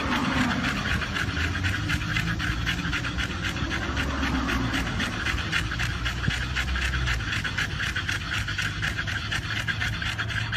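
French bulldogs panting hard and fast, quick even breaths in and out through wide-open mouths.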